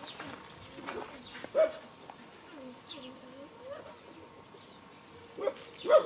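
A dog barks sharply about one and a half seconds in and again just before the end, with softer, lower calls in between.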